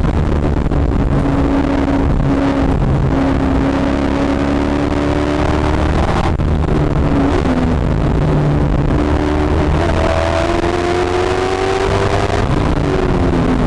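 Katech-built V8 of a C6 Corvette Z06 race car at high revs under throttle, heard from inside the cockpit. Its pitch climbs, breaks off briefly about six seconds in, climbs again from about ten seconds, and falls away near the end as the revs drop.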